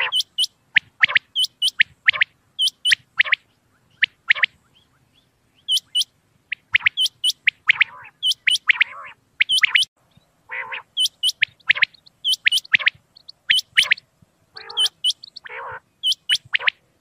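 Common quail calling over and over: short, sharp, high notes in quick pairs and threes, mixed with lower, rasping calls.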